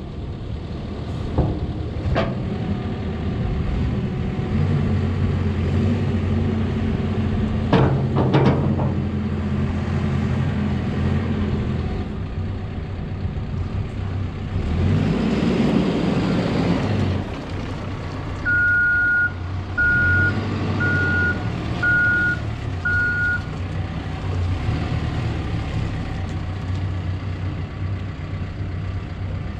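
2014 Cat 420F backhoe loader's diesel engine running steadily. It swells into a loud surge about halfway through, then the reversing alarm beeps five times. There are a few sharp clanks near the start and again about eight seconds in.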